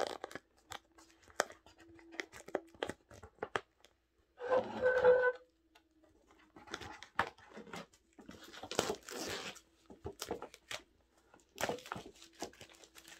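Clear plastic wrap being torn and crinkled off a cardboard headphone box: scattered crackles and rustles, with a loud rip that has a brief squeal about four and a half seconds in.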